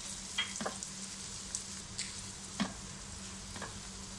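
Crushed garlic sizzling in oil and butter in a nonstick frying pan as a silicone spatula stirs it, with a few light taps and scrapes of the spatula against the pan.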